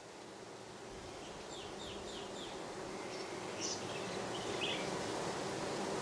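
Colony of Italian honey bees buzzing on an open brood frame: a steady low hum that grows gradually louder.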